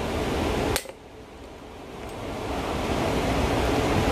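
A single sharp snap about a second in from a hand pop-rivet tool as an aluminium rivet's mandrel breaks off, the rivet now set in the two-part pulley. Under it, a steady rush of wind noise on the microphone, which dips right after the snap and slowly swells back.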